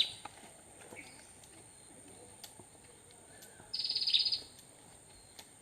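A high, rapid trilled call, repeated once for under a second about two-thirds of the way through, over faint outdoor ambience with a thin steady high whine.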